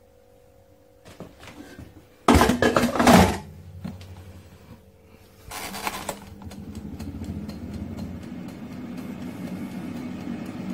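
Daewoo air fryer basket pushed shut with a loud clatter about two seconds in. A few seconds later the timer dial is turned and the fryer's fan starts running with a steady hum.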